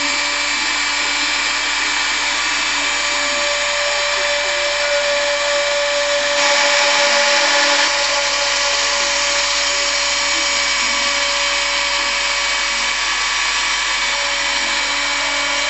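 Hobby CNC router's spindle running at a steady high whine while its bit mills a relief into wood, with a hiss of cutting over it. About six seconds in it grows louder and hissier for a second and a half.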